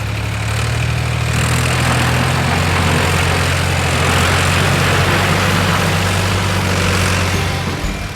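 Tractor engine running steadily, a deep even hum under a hiss, which stops just before the end.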